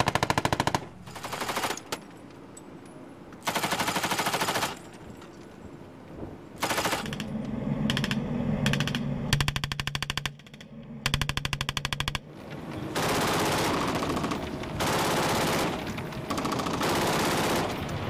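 Boat-mounted machine guns firing automatic bursts, about ten bursts of rapid shots in all, some short and some lasting about a second, with gaps between them. A boat engine hums steadily underneath through the middle stretch.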